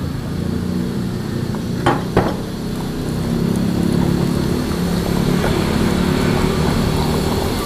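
Wooden pestle stirring and grinding thick peanut sauce in a mortar, wet scraping with two sharp knocks about two seconds in. A steady low engine hum runs underneath.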